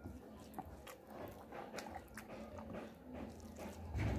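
A person chewing and smacking on a mouthful of rice and fish curry eaten by hand, with scattered short clicks and a louder low thump near the end.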